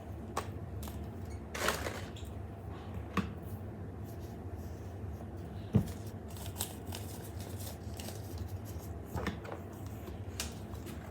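Toy packaging being handled: a few scattered clicks and short rustles, with one dull thump about six seconds in, over a steady low hum.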